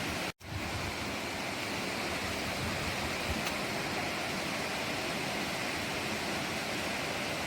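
Steady rushing roar of a tall waterfall, about 98 metres high, heard from its viewpoint, with a brief gap about half a second in.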